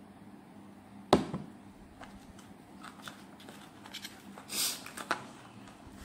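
Handling sounds from a gift box with a foam tray, phone cases and a small Bluetooth speaker: one sharp knock about a second in as the speaker is put back into the box, then scattered light clicks and a short hiss a little past the middle.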